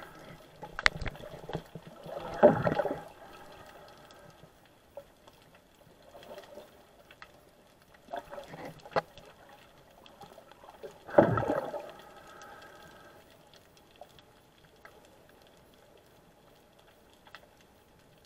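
Muffled underwater water noise picked up inside an action camera's waterproof housing, with two louder surges of water sound about two and a half and eleven seconds in, and a few faint clicks. The sound dies down to a low hush near the end.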